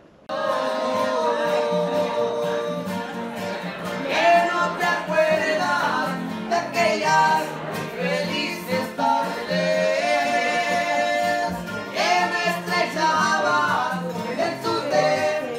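Live acoustic guitar with a man singing, starting suddenly just after the start.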